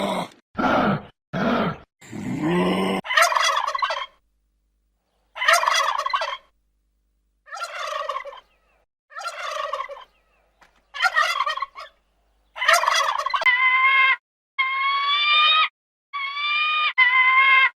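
Animal calls: three low-pitched grunting calls in the first three seconds, then a run of separate higher-pitched calls, each about a second long, with short silences between them.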